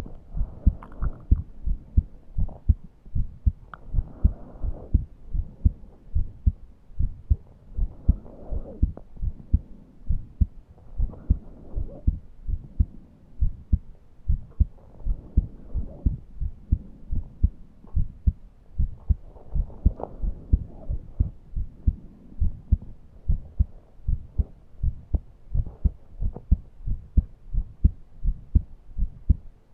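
A human heartbeat recorded against the chest: a steady run of low, regular thuds, often in close pairs. Every three to five seconds a shallow, wheezing breath is heard under it, from someone who is short of breath and cannot breathe deeply.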